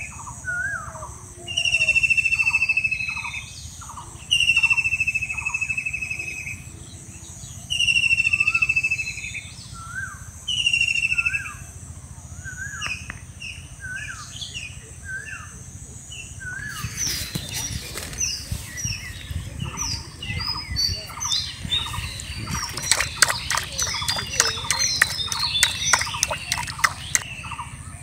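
Birds calling in woodland: one bird repeats a long, slightly falling whistle every few seconds, five times in the first half, while another keeps up short, quick notes. In the last third the chirping grows busier, with a run of sharp clicks.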